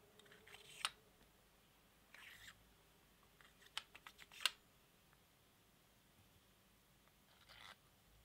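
Faint handling sounds of a dagger being dry-fitted, with a wooden handle and steel fittings slid onto the blade's steel tang: a sharp click about a second in, a short scrape, then a quick run of small clicks ending in a sharper one around the middle, and another brief scrape near the end.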